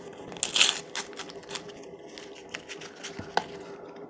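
Small clicks and taps with a brief paper rustle about half a second in as turmeric tea bags are handled, over a steady hum.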